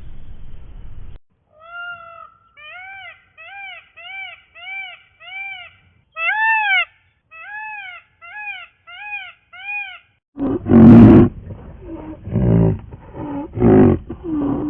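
Animal calls: a run of about a dozen short, high, rising-and-falling cries at roughly two a second, one of them louder and longer, then from about ten seconds in several much louder, rough calls.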